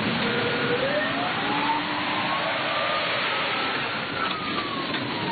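Ambulance siren on an emergency run, one slow wail that rises for about three seconds and then falls away, over the steady noise of the moving vehicle.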